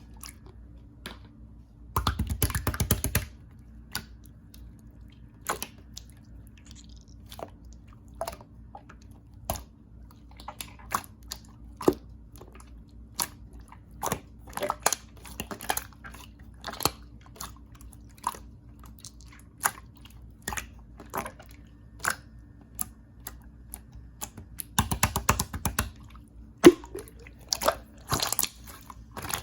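Clear slime being squished and poked, making sharp irregular clicking pops, with two stretches of fast crackling, about two seconds in and again near the end.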